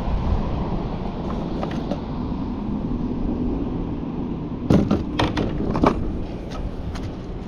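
Steady low rush of wind and water, with a quick run of about five sharp knocks around five seconds in.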